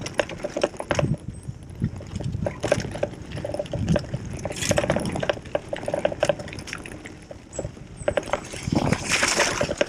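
Gravel bike rattling and clattering over a rough, rocky track, then its tyres splashing through a shallow stream crossing about nine seconds in.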